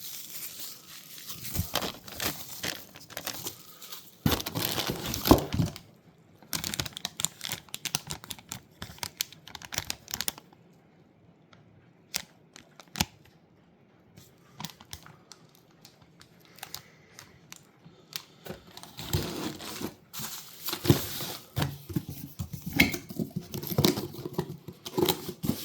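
Packaging being torn open and crinkled by hand while car parts are unwrapped: irregular tearing and crinkling, with a quieter pause partway through before more handling near the end.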